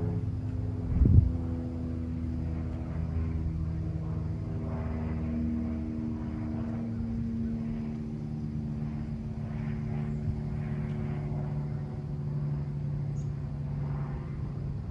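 Jet airliner flying over unseen in cloud: a steady engine drone with several humming tones that slowly fall in pitch. A short thump about a second in.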